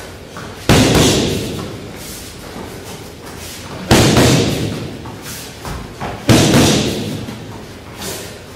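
Gloved punches smacking into focus mitts during a punch-jab drill, three sharp impacts about three seconds apart, each ringing out for over a second in the hall.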